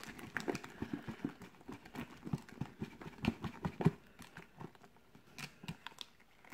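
Wooden mixing stick stirring sticky glue slime in a thin plastic tub: irregular clicks and knocks of the stick against the plastic, with two louder knocks a little past three seconds in.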